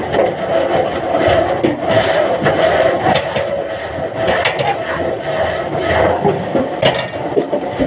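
Log-handling and debarking machinery running steadily, with several sharp knocks as logs are moved.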